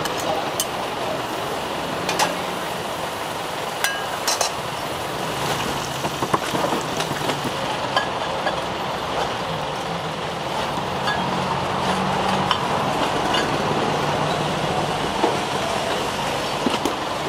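Street traffic noise with scattered sharp metallic clinks and taps from a metal spatula and utensils on a roti griddle. A vehicle engine runs low and steady near the middle.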